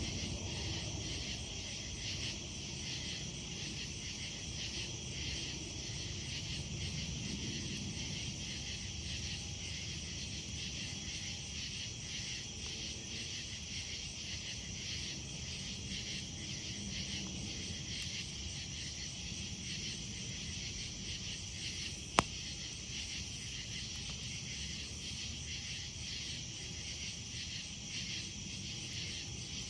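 A steady chorus of night insects chirping in fast, even pulses over the low sound of a campfire burning, with one sharp crack from the fire about two-thirds of the way through.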